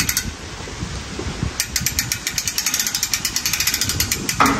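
Rapid metallic clicking, like a ratchet, from the hitch-mounted metal rig being worked by hand. A short run of clicks comes at the start and a longer run from about one and a half seconds to four seconds, followed by a brief pitched sound near the end.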